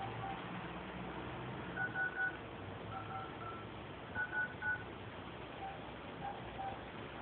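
Short high beeps in quick groups of three, each group at one steady pitch, the loudest about two seconds in and again about four and a half seconds in. Fainter, lower single beeps are scattered between them, over a low background hiss.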